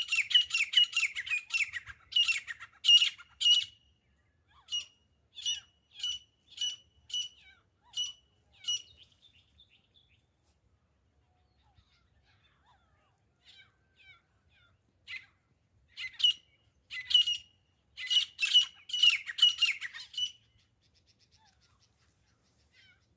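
Grey francolin calling: fast runs of sharp, high notes, then single notes about twice a second, a pause of several seconds, and another fast run near the end.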